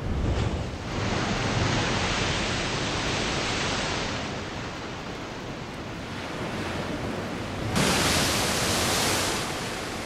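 Heavy surf crashing against limestone sea cliffs. A wave breaks at the start, foaming water rushes steadily, then a second, louder wave crashes about eight seconds in.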